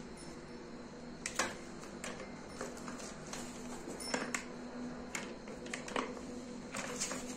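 Plastic poultry feeder parts clicking and knocking as a hanging chick feeder's hopper, feeding pan and pipe are handled and fitted together, in irregular light clicks over a faint steady hum.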